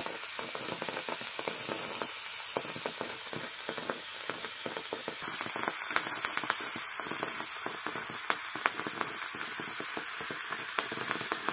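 Charcoal burning in molten potassium nitrate in a glass test tube: a steady hiss with frequent sharp crackles and pops.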